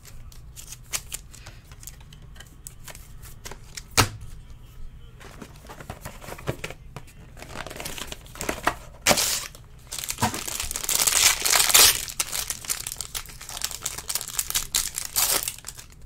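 Foil trading-card pack wrapper crinkling and tearing as it is opened, densest from about eight to twelve seconds in. A single sharp click about four seconds in.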